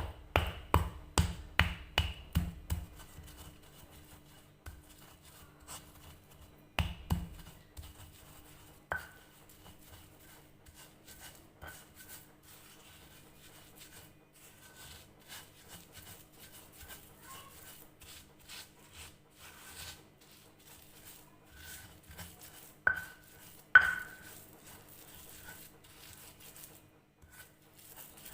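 Sambal for rujak being prepared by hand: a quick run of heavy knocks in the first three seconds and another about seven seconds in, then soft scrapes and taps, with a few short ringing clinks of a utensil on a dish, the loudest near the end.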